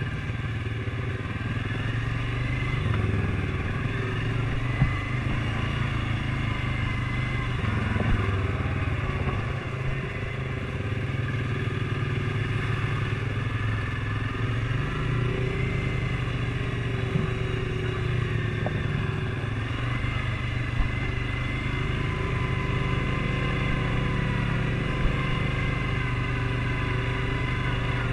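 ATV engine running steadily while riding, its pitch rising and dipping slightly, with a few short sharp knocks.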